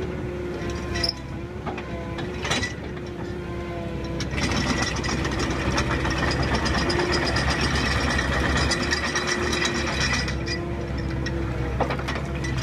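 Excavator running while its screening bucket is shaken, so soil and stones rattle against the bucket's steel grid as the dirt sifts through. A dense, fast rattle starts about four seconds in and lasts about six seconds, over the steady hum of the engine.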